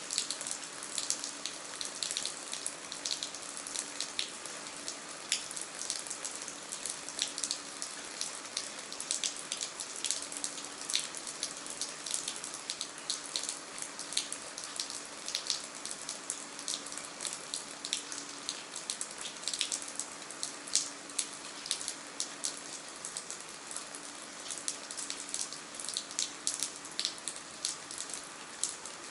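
Rain falling, with many close, sharp drop hits over a steady hiss.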